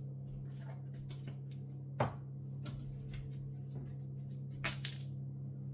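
Small kitchen handling sounds: light clicks and ticks of a utensil or container at the cooking pot, a sharp knock about two seconds in and a brief clatter near the end, over a steady low hum.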